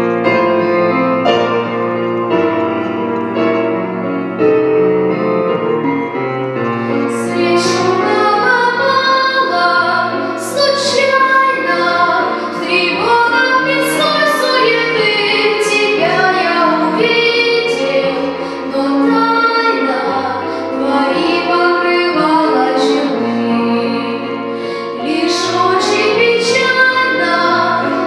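Piano accompaniment playing a slow introduction, then a boy's unbroken voice enters about seven seconds in, singing a Russian romance into a microphone over the piano.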